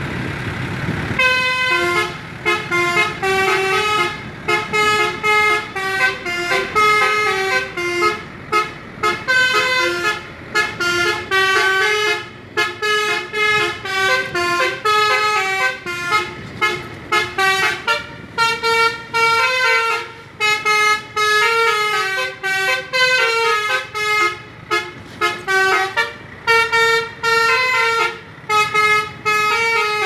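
Basuri musical multi-tone bus horn (telolet horn) playing a fast melody of stepped notes in short phrases with brief gaps, starting about a second in.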